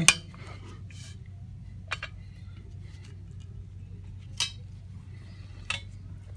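About four sharp metal clicks and clinks, a second or more apart, over a low steady hum: metal TV-stand bracket parts being handled and a set screw tightened snug.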